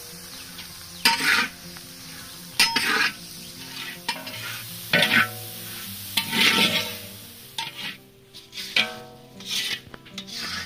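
Fish head pieces and prawns frying in hot oil in a pan, stirred with a spatula: about nine short surges of scraping and louder sizzle, one every second or so.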